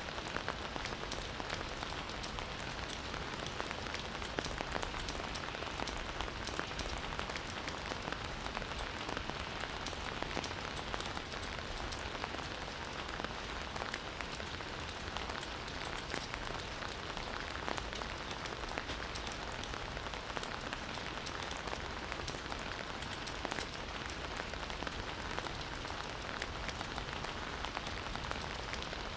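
Campfire burning steadily, a constant hiss dense with small sharp crackles and pops.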